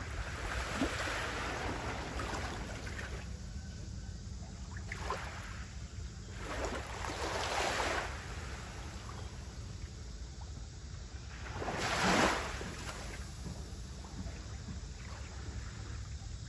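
Small waves washing in on the shore of a calm sea. A few soft surges swell and fade, the loudest about twelve seconds in, over a steady low rumble.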